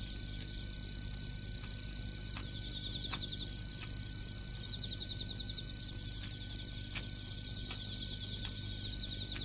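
Steady high-pitched animal calls in a continuous trill that swells into faster pulsing stretches, over a low steady hum, with a few faint clicks.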